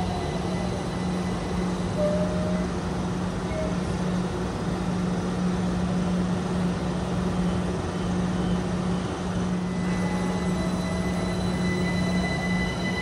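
Passenger train running, a steady rumble with a low hum and thin high whines that grow stronger near the end.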